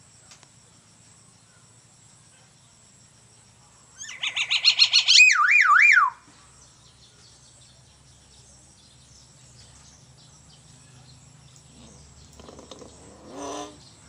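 Common hill myna mimicking an ambulance siren: a fast run of bright pulses, then a wailing pitch that sweeps up and down three times, about two seconds in all. A softer, lower call follows near the end.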